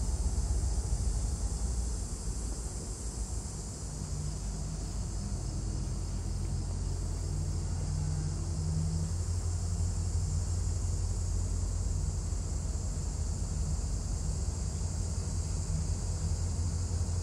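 Norfolk Southern EMD SD60E diesel locomotive running at low throttle as it rolls slowly forward, a steady low engine rumble.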